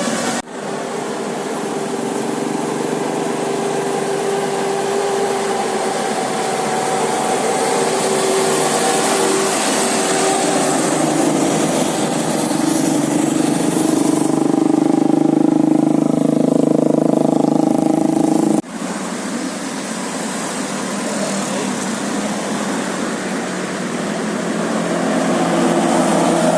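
Road traffic: vehicle engines running and tyres on the road, with a low hum that rises and falls as vehicles pass. The sound breaks off abruptly twice, about half a second in and about 18 seconds in.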